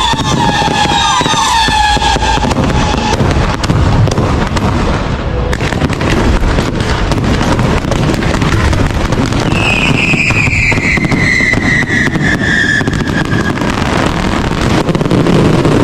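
Aerial fireworks going off without pause, a dense run of crackling and bangs. A high whistle falls in pitch for about three seconds starting roughly ten seconds in.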